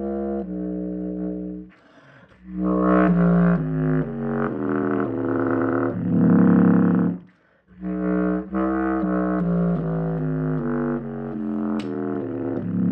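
Bass clarinet played through a voice-effect processor: a run of changing notes, broken by two short pauses, about two seconds in and again about seven and a half seconds in.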